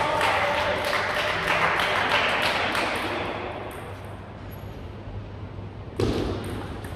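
Table tennis ball clicks and bounces over a burst of hall noise that dies away over about three seconds. About six seconds in there is a sharp, loud hit.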